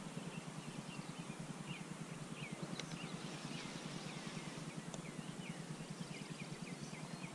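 A songbird chirping over and over in short falling notes, breaking into a quick trill near the end. Under it runs a fast, steady low ticking from a Lew's Speed Spool baitcasting reel being cranked.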